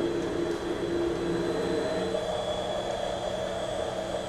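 Vertical head of a Union BFT 130/6 CNC horizontal boring mill travelling to its home position under its Fanuc servo drive: a steady machine hum with a high whine, its tones shifting to another pitch about two seconds in.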